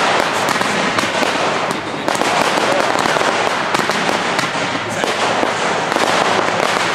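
Fireworks display: a dense, continuous crackling with many quick sharp pops from bursting crackle stars.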